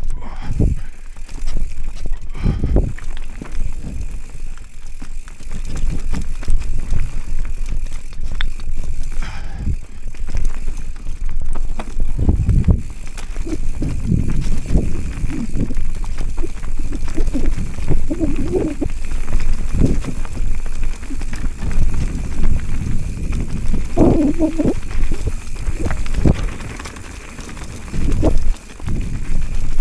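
Giant Trance full-suspension mountain bike ridden down a rough dirt trail: a continuous rumble of tyres and suspension over the ground, with frequent irregular knocks from bumps.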